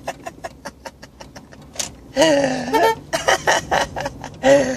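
A man laughing hard: a run of quick, breathy laugh pulses, a longer pitched cackle that dips and rises about two seconds in, then more short pulses.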